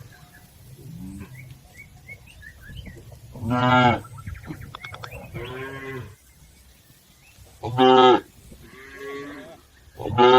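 Cattle mooing: several cows give short, loud calls a few seconds apart, with fainter moos in between.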